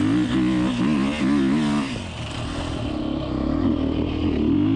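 Beta RR 430 single-cylinder four-stroke enduro engine being ridden hard, revs rising and falling with the throttle. It eases off about two seconds in and picks up again near the end.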